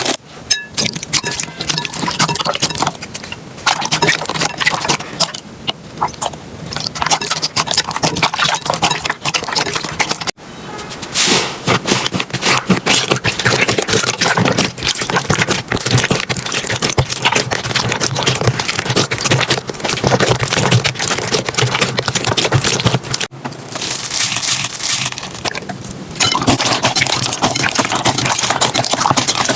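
Slime being squeezed and poked by hand, full of dense crackling and popping. The sound changes abruptly twice, about ten seconds in and again a little after twenty-three seconds.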